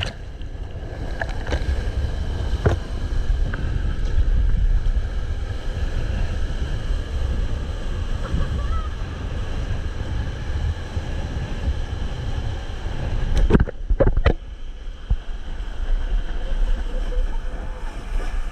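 Wind and rushing water buffeting an action camera's microphone on a surfboard riding a wave, with spray splashing over it; a few sharp knocks come about three-quarters of the way through.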